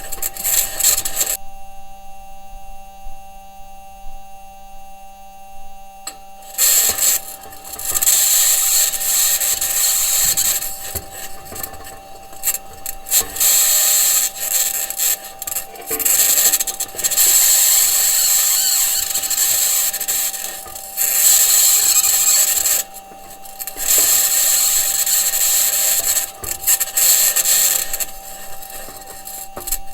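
Perseverance Mars rover driving, heard through its entry, descent and landing microphone: a high-pitched scratching noise that comes and goes in stretches of a few seconds, over a steady electrical hum. The scratching's cause is unresolved: either electromagnetic interference from one of the rover's electronics boxes or the wheels and suspension working against the Martian surface.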